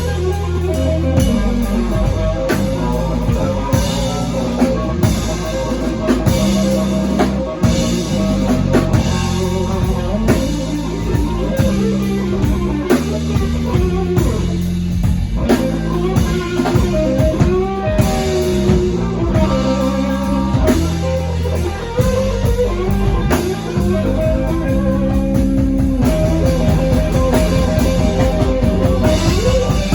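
Live blues band playing an instrumental blues in C: guitar over bass guitar and a drum kit, the bass holding steady low notes under a busy drum beat that gets denser near the end.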